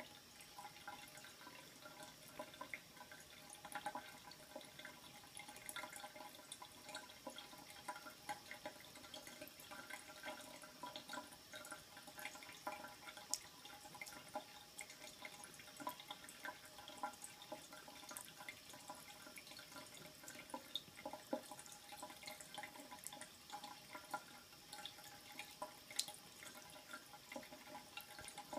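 A thin stream of water running from a bathroom faucet into the sink basin, faint and steady, broken by many small irregular splashes and drips as a cat laps at the stream.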